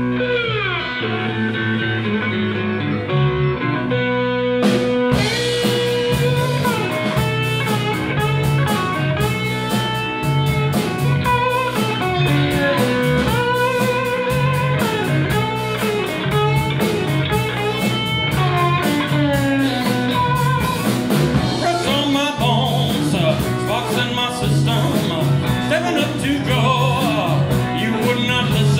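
Live blues band with electric slide guitar, bass guitar, keyboards and drum kit playing the opening of a song. The slide guitar glides down in pitch at the start. The drums come in with a sharp hit about five seconds in, and steady cymbal strokes run on after that.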